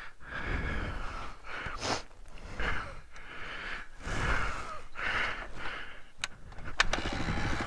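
A person's heavy breathing, then near the end a couple of sharp knocks from the kick-start. The Suzuki DR250's single-cylinder engine catches on the first kick and runs with a fast, even beat.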